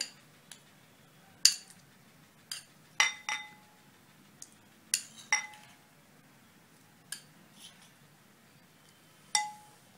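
Metal spoon clinking against glass bowls while chopped apple is spooned in. There are about ten sharp, separate taps, a few of them ringing briefly.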